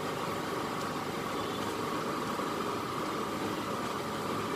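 Steady mechanical hum of a running motor with a constant mid-pitched tone, unchanging throughout.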